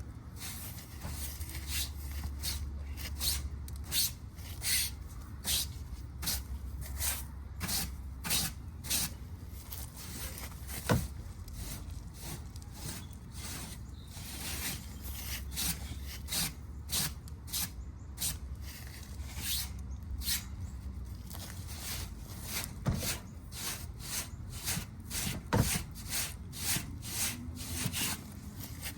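Repeated short rubbing or scraping strokes, roughly one or two a second, as dirt is cleared out of a heavily clogged AC condenser unit, over a steady low hum.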